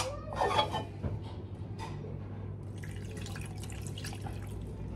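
Chicken broth poured from a stainless steel pot into a glass storage dish over boiled chicken pieces. It starts a little past halfway in as a steady trickling pour, after a few light clinks.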